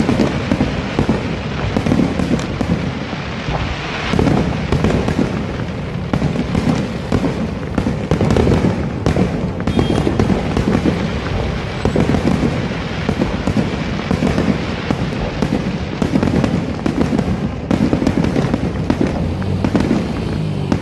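Aerial fireworks display: a dense, continuous barrage of bursting bangs and crackles, one after another with no pause.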